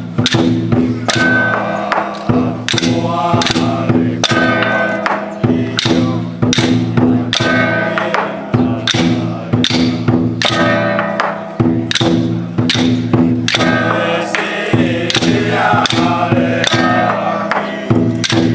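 Taiwanese temple ritual music: a sustained melodic line over sharp percussion strokes at a steady beat of about two a second.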